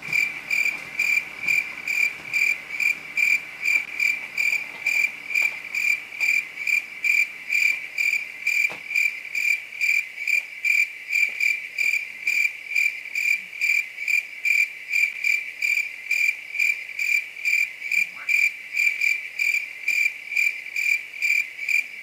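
Cricket chirping in an even, unbroken rhythm, about two high-pitched chirps a second.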